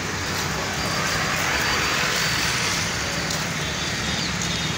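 Steady road traffic noise: vehicles passing on a wet street, their tyres hissing on the wet road.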